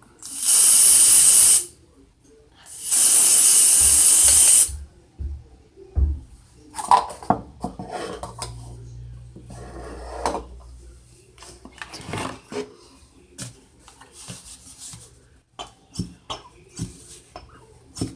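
Aerosol spray can spraying in two long hissing bursts, about one and two seconds each, near the start, followed by scattered light clicks and knocks of containers being handled.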